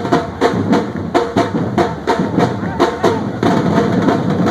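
Music with a fast drum beat, several strikes a second.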